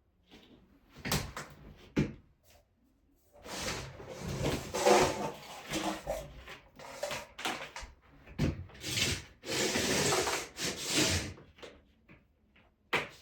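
Rubbing, scraping and knocking from heating cable being worked into the studs of a plastic Ditra-Heat uncoupling membrane: a few sharp knocks in the first three seconds, then longer stretches of rubbing and scraping until near the end.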